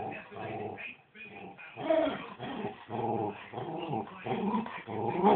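West Highland white terrier "talking": a run of short pitched grumbling vocal sounds, one after another, loudest about two seconds in and again at the end. It is an attention-seeking attempt to tell its owners something.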